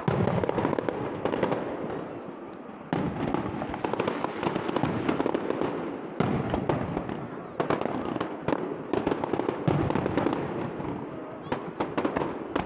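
Aerial firework shells bursting in a display, with a fresh set of sharp bangs every couple of seconds and crackling between them.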